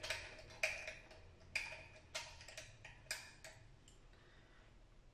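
Hex key working the screw in a smart lock's lever handle, loosening it: about seven faint, irregular clicks in the first three and a half seconds.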